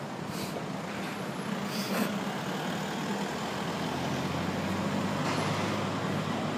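Street traffic noise with a vehicle engine running nearby, its low hum growing louder about four seconds in.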